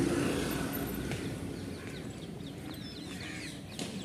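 A car passing close by, its engine hum fading over the first second, then birds chirping in the roadside trees: many short, quick calls.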